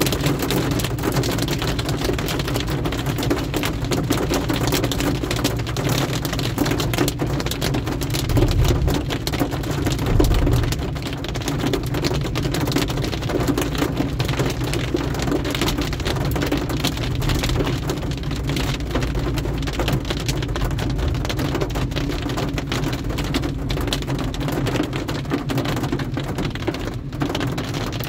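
Heavy rain hitting a car's windscreen and roof, heard from inside the moving car as a dense, steady patter over the low hum of the car on the wet road. About eight seconds in, a deeper low rumble swells for a few seconds, then fades.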